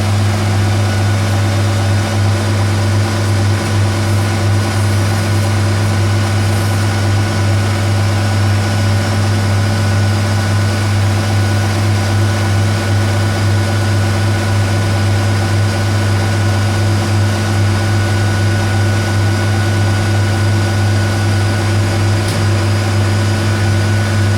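Metal lathe running steadily with a strong, even hum while turning bar stock down by half a millimetre. It is switched off at the very end and the sound dies away quickly.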